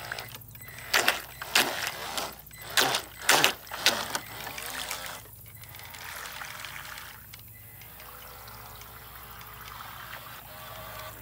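RC boat's outboard propeller churning and splashing water in the shallows, a quick run of loud splashes in the first few seconds, then a quieter steady wash of water as the boat pulls away.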